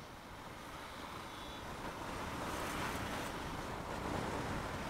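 Motorcycle riding along a road, its wind rush on the microphone mixed with the engine, getting gradually louder as the bike speeds up.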